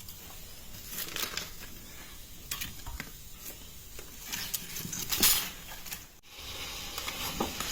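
Dry sticks being handled and fed into a small wood cooking fire: scattered rustles, snaps and crackles, with a louder rustle about five seconds in.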